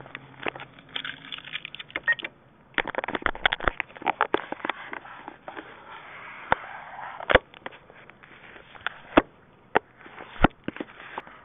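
Hands handling a hidden camera and the ATM fascia right at the microphone: irregular sharp plastic clicks, taps and scraping. They come thick and fast for the first five seconds, with a brief quiet gap about two seconds in, then thin out to single loud clicks about once a second.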